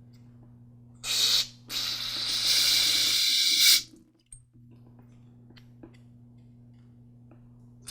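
Aerosol carburetor cleaner sprayed from the can's tip into the openings of a lawn mower carburetor body: a short hissing burst about a second in, then a longer spray of about two seconds.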